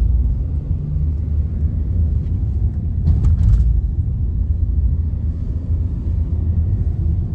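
Steady low rumble of a car on the move: road and engine noise.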